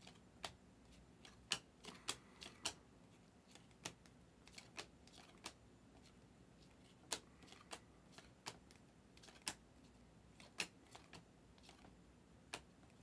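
Stack of Donruss Optic basketball trading cards being flicked through one at a time in the hands. Each card slid off the stack gives a short, sharp click, coming unevenly about one to two times a second.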